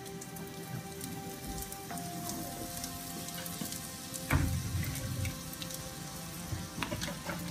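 Hot bacon fat sizzling and crackling on a foil-lined baking sheet just out of the oven, with one dull thump a little past the middle.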